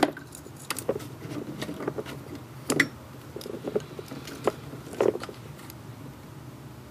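Scattered clicks and taps of multimeter test probes being handled and set against the pins of an idle air control motor, with the loudest knocks about 2.7, 4.5 and 5 seconds in, over a steady low hum.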